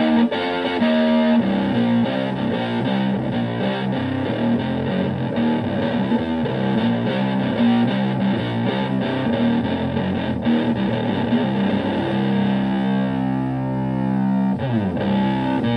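Stratocaster electric guitar played through a Höfner "The Höf" preamp driving a Fender Twin Reverb–style tube amp into overdrive, giving a continuous run of distorted notes. Near the end there is a held chord, then a slide down in pitch.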